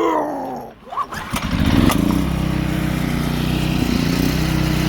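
Small portable generator being pull-started: the recoil starter whirs and the engine sputters, then catches about two seconds in and runs steadily.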